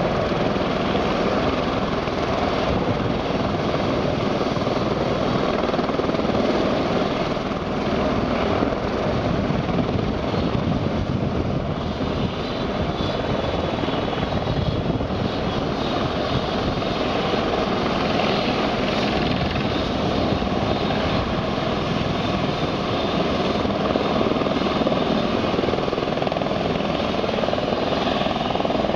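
Eurocopter EC120 Colibri helicopters hovering low and setting down close by: the steady chopping of the main rotor and the whine of the turboshaft engine and Fenestron tail rotor, with no change in level.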